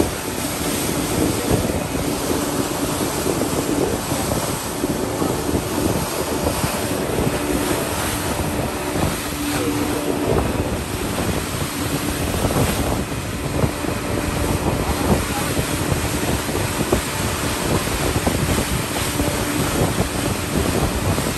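Small motorboat's engine running steadily under way, a constant drone, with water rushing past the hull and wind buffeting the microphone.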